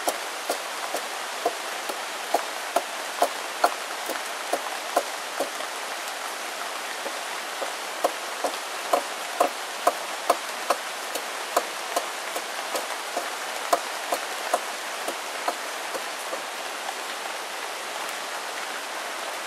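Hand adze chopping into a freshly hewn log, sharp knocks coming irregularly, one or two a second, over a steady hiss of rain.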